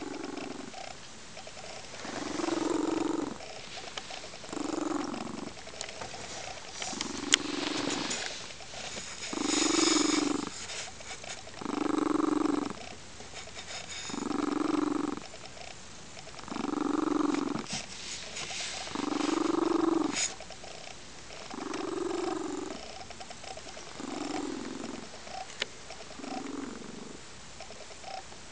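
Lynx-point Siamese cat purring very loudly, the purr swelling and fading with each breath, about one swell every two to three seconds, with a coo-like, pigeon-like tone.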